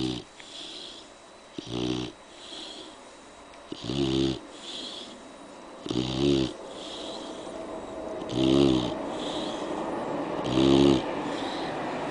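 A sleeping dog snoring. Each loud, rasping in-breath comes about every two seconds, six in all, with a softer breathy out-breath between.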